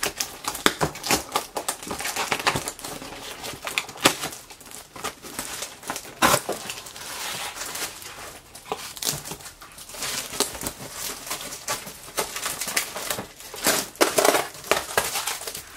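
Cardboard shipping box and packing tape being cut and torn open with a utility knife: irregular scraping, tearing and crinkling strokes, with a few sharper, louder ones about six seconds in and near the end.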